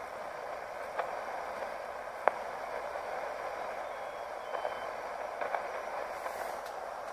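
Receiver hiss from a homebrew 40-meter direct-conversion QRP transceiver's speaker as it is tuned across the band. A steady band noise is broken by a few sharp static clicks, the loudest about two seconds in, and some lighter crackles later.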